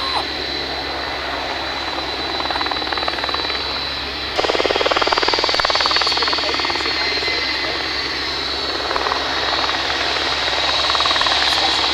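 Aerospatiale AS355F-2 Twin Squirrel helicopter hovering low, a steady turbine whine over the fast beat of its main rotor. It gets suddenly louder about four seconds in.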